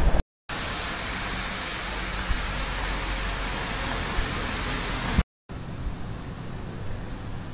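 Steady outdoor street ambience, a hiss of distant traffic with no clear single event. It cuts out to silence twice, briefly, about a quarter second in and again about five seconds in, and after the second gap it is quieter.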